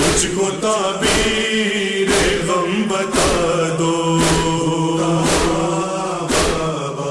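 Urdu noha, a lament, performed by chanting voices over a steady low drone, with a sharp beat about once a second.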